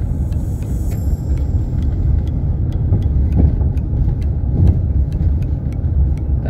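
Car cabin noise while driving: engine and tyres give a steady low rumble, with faint light ticking about three times a second.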